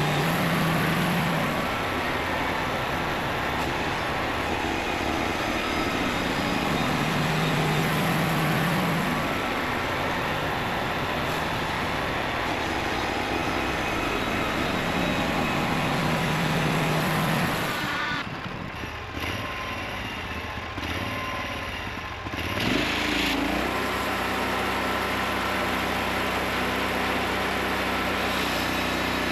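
Homemade engine-driven sawmill running and sawing lumber: dense, steady cutting noise over the engine, with the engine's hum swelling three times. About 18 seconds in it drops quieter, and a few seconds later the engine rises briefly in pitch and settles into a steady run.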